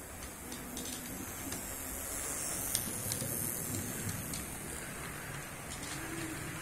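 Model train of green passenger coaches rolling past close by on sectional track: a steady running rumble with scattered sharp clicks as the wheels cross the rail joints.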